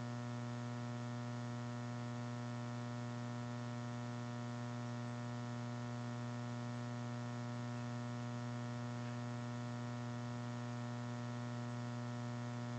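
Steady low electrical hum with a buzzy edge, unchanging throughout.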